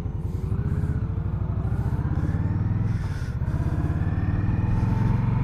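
2020 Indian Scout's 1,133 cc V-twin accelerating away from a stop, its pitch rising, dipping briefly about three seconds in, then rising again.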